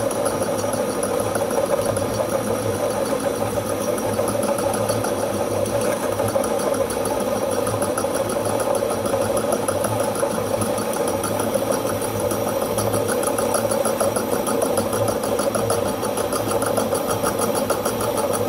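Holbrook C8 metal lathe running steadily under power feed, boring out the drawbar, with a regular low throb.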